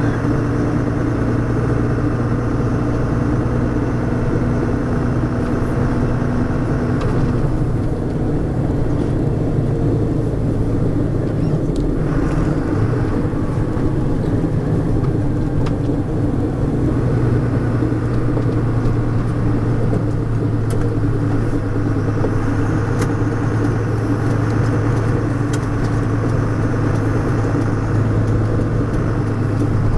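MAN 18-tonne truck on the move, its six-cylinder D0836 diesel running steadily under the whine of the Eaton Roadranger gearbox and a badly worn, neglected differential. The whining tones change about seven seconds in and again later on.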